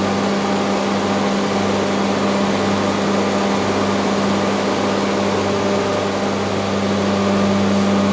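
Loud, steady drone of running machinery, with a constant low hum under an even rush of noise.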